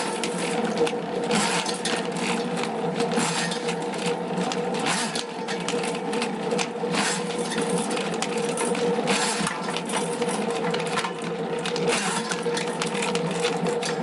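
Electric sewer drain-cleaning machine running steadily: a constant motor hum with an uneven rattle and clatter from the spinning cable as it works through the sewer main line.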